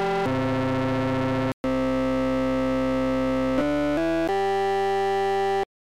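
Web Audio browser synthesizer playing evolved waveforms through a modulator oscillator: a string of held, buzzy tones rich in overtones, each starting and stopping abruptly, the pitch and timbre changing several times as notes and the modulator detune change. The sound cuts off suddenly near the end.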